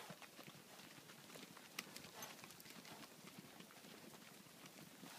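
Faint hoofbeats of horses walking on hard, dry ground: soft irregular clops and clicks.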